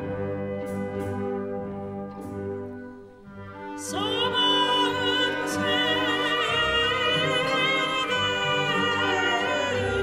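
Symphony orchestra playing a slow Turkish folk-song arrangement, thinning out about three seconds in. About four seconds in, a female soprano enters singing with wide vibrato over the orchestra.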